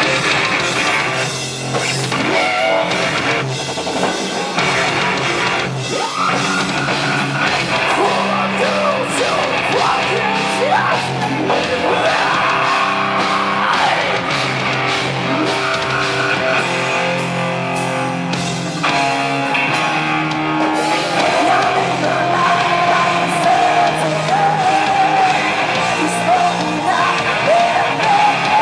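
Live rock band playing: sung and shouted vocals over electric guitar and drums, loud and continuous.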